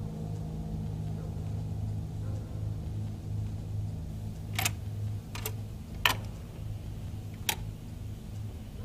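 Record player being handled: four sharp clicks in about three seconds, the third the loudest, over a steady low hum.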